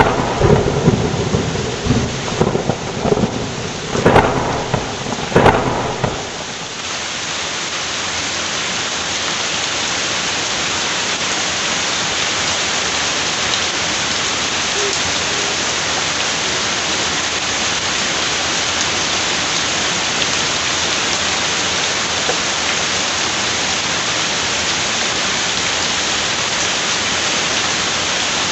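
Steady splashing of water pouring from a wall spout into a koi pond, a small garden waterfall. Irregular low rumbles and knocks come over it during the first six seconds.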